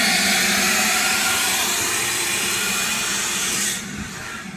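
Wet/dry shop vacuum running with a steady, loud hiss and hum. The hiss drops off sharply near the end.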